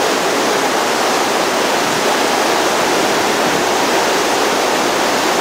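Steady roar of a big whitewater rapid on a large river: Lava Falls on the Colorado River, crashing waves and surging water.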